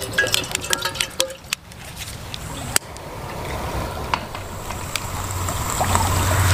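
Water poured from a plastic bottle into a stainless gooseneck kettle, gurgling, stopping about a second and a half in. Then a few sharp clicks as a long lighter is put to the brass burner under the kettle, over a hiss that grows louder toward the end.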